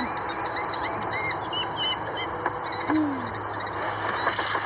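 Birds calling: a run of quick, repeated arched chirps, then a few short higher notes and one low falling call about three seconds in. Near the end a burst of crackling noise sets in over them.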